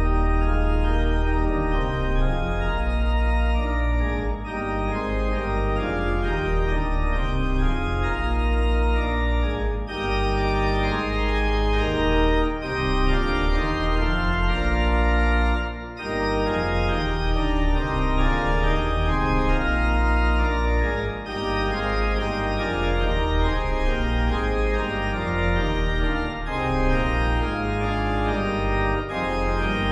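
Organ music in slow, held chords over a deep pedal bass, with short breaks between phrases.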